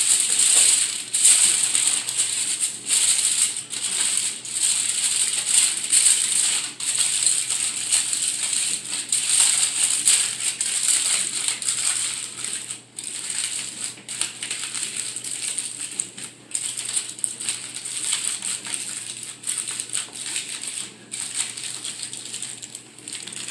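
Aluminium foil crinkling and rustling as a foil cooking packet is folded and wrapped by hand, a dense run of crackles that eases off somewhat near the end.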